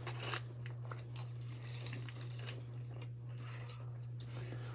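Close-up chewing of crunchy fried curly fries, a run of small crisp crunches and mouth sounds, over a steady low hum.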